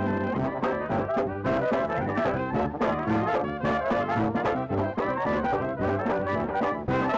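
Upbeat background music led by brass horns over a steady beat.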